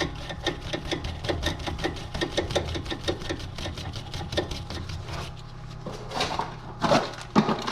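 Pneumatic impact wrench (air gun) spinning a new nut onto a tie rod, with a rapid, even rattle for about five seconds, then a few louder knocks near the end.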